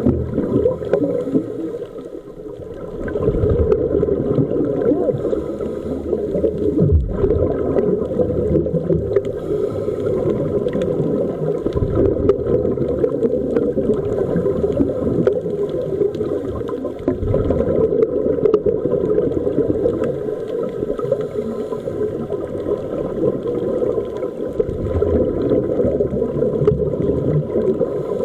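Muffled underwater sound picked up by a diving camera: a steady low rumble of water with bubbling and many faint crackling ticks.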